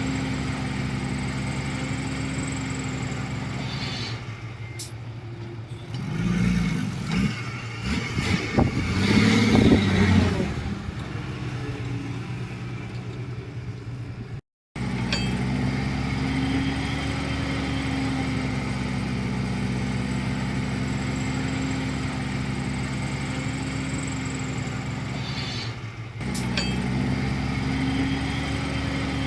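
Bulldozer's diesel engine running steadily under work, its pitch shifting a little as the load changes. About six to ten seconds in there is a louder, uneven stretch of rumbling and clatter, and the sound breaks off briefly near the middle.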